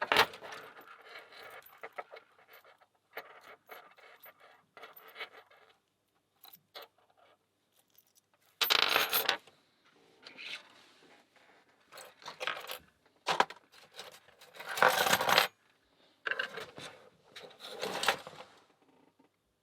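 Small metal pieces clinking and rattling in short irregular bursts with scattered clicks, as a lock and lockpicking tools are handled.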